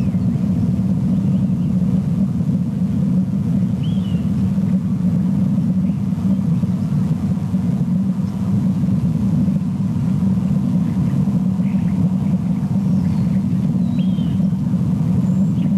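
Steady low rumble on the camera's outdoor microphone, with a few faint, short high bird chirps about four seconds in and twice near the end.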